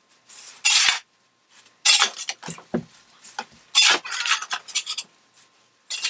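A metal tool scraping and scooping ash out of a fireplace, in a string of irregular rasping scrapes with short pauses between them.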